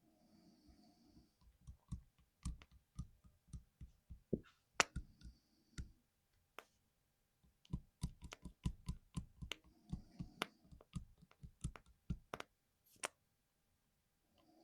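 Plastic clicks and clacks from a 60% mechanical keyboard, coming irregularly in two bursts with a short pause between them, mixed with a few brief soft rustles.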